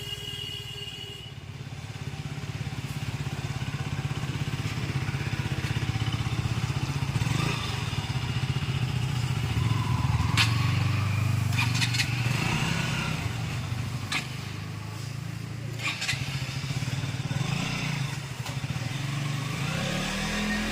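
KTM single-cylinder motorcycle being ridden on the road, its engine note rising and falling as it is throttled. This is a test ride after a chain-noise fix: the chain runs smoothly, without the 'tak tak' knock.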